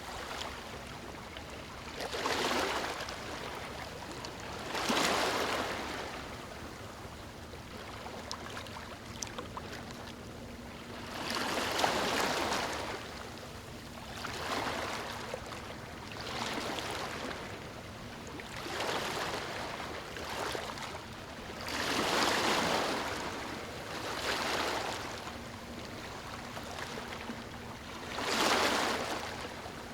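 Waves lapping on a beach: a wash of water swells and fades every two to three seconds, some washes stronger than others.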